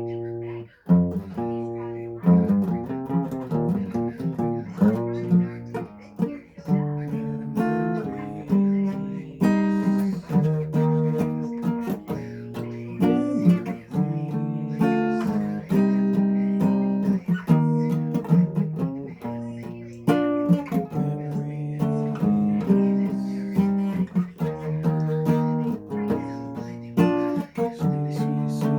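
Acoustic guitar playing, a steady run of plucked and strummed notes.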